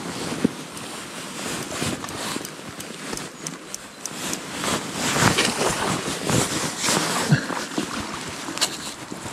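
Wind buffeting the microphone over a fast-flowing river, with irregular rustling and clicks from the rod, reel and landing-net pole being handled while a fish is brought to the bank. The handling grows busier about halfway through, with a sharp knock near the start and another towards the end.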